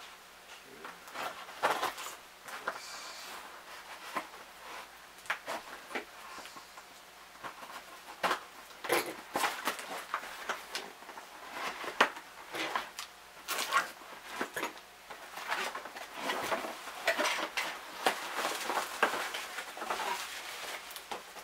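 A shipping package being opened and handled by hand: irregular rustling and crinkling of the packaging, with scattered sharp clicks and taps.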